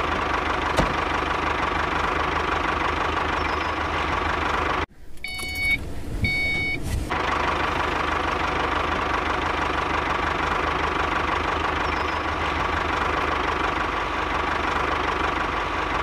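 Tractor engine running steadily at idle with a fast knocking beat. It drops out briefly near the middle, when two short beeps sound.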